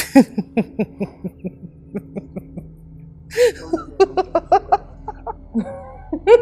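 A woman laughing in quick, rhythmic "ha-ha-ha" bursts, twice: one bout in the first two and a half seconds, then a second, higher-pitched bout from about three and a half seconds in.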